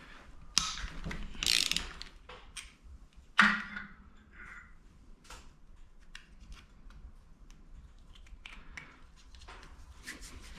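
Hand ratchet clicking while bolts are worked loose, among scattered metallic clicks of tools and parts, with one sharp clank about three and a half seconds in.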